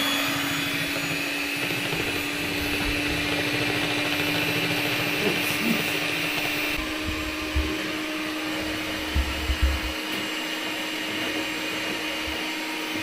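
Electric hand mixer running steadily, its beaters whipping heavy cream in a bowl: a constant motor hum with one steady tone, a bit loud. A few low bumps come about two-thirds of the way through.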